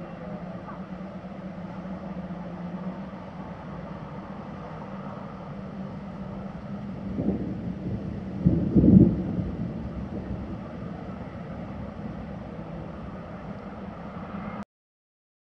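Distant thunder rumbling, building about seven seconds in, peaking around nine seconds, then fading, over a steady low hum.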